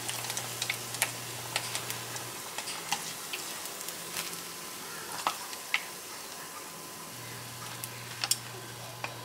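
Food frying in hot oil: a steady sizzle with scattered crackles and pops.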